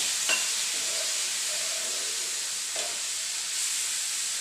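Amla and spice mixture sizzling steadily in a hot pan just after water has been poured in, with a couple of brief knocks against the pan.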